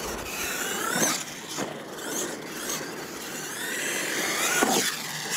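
Radio-controlled monster truck driving on a dirt track, its motor whining up and down in pitch as the throttle is worked, over the hiss of tyres on loose dirt.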